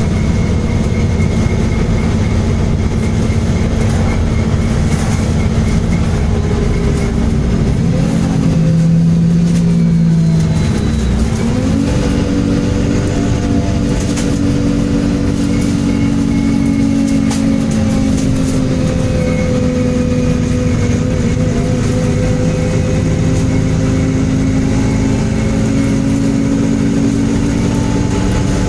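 MAN Enviro 300 single-deck bus running, its diesel engine rumbling under a loud, sustained screech. The screech holds a steady pitch, then rises and wavers about a third of the way in.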